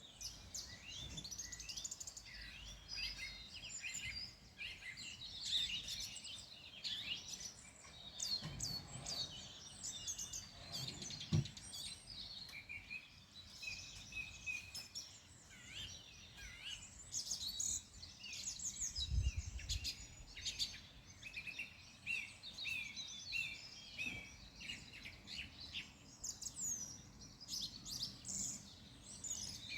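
Several birds singing at once, a dense mix of quick chirps, trills and whistled notes, some repeated in short runs. A couple of brief low rumbles come through about a third and two thirds of the way in.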